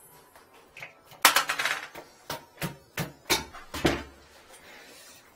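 Hard plastic toilet seat and lid clacking and knocking against the porcelain toilet as they are handled: a quick cluster of clatter about a second in, then about five separate knocks over the next two seconds.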